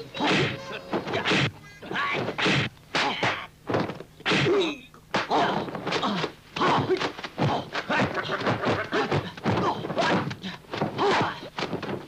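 Dubbed fight sound effects of punches and kicks: a rapid run of sharp thwacks and thuds, several a second, coming in flurries with short gaps between them.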